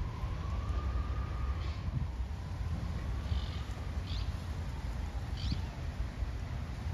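Faint emergency-vehicle siren wailing slowly, its pitch rising and then falling, over a steady low rumble of city noise. A few short bird chirps break in at intervals.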